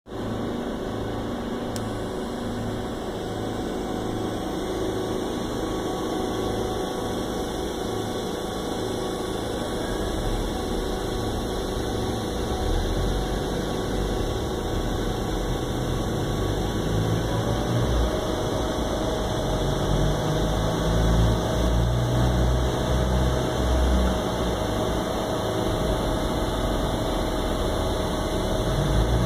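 Robotic TIG welding cell running: a steady machine hum with a slow, regular low throb at first, growing louder and rougher about halfway through as the welding arc burns. A steady tone joins past the middle.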